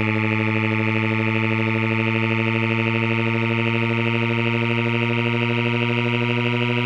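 Electronic hearing-test tone: a steady, buzzy low tone rich in overtones, its pitch creeping slowly upward.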